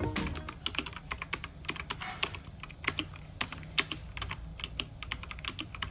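Typing on a mechanical keyboard with Outemu brown (tactile) switches: a quick, uneven run of soft key clicks.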